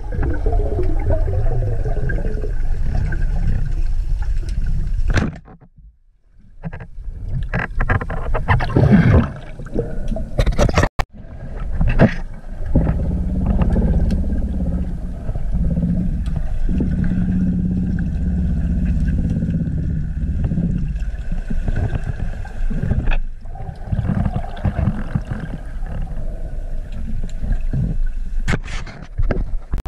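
Muffled underwater noise picked up by a camera in a waterproof housing as a diver swims: a steady low rumble with scattered knocks and clicks, which drops away briefly about five seconds in.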